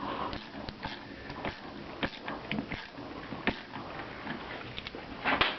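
Irregular small clicks, taps and scrapes of hand-working a homemade sheet-metal hose clamp, as it is tightened down.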